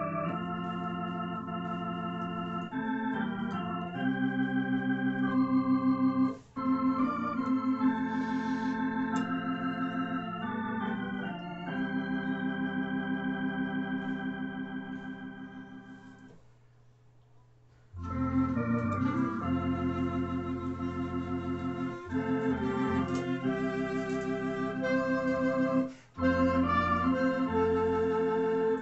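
Tokai T1 electronic organ playing a slow hymn in held chords, the first phrase dying away about two-thirds of the way through, then after a brief pause the organ starts again with a clarinet playing the melody.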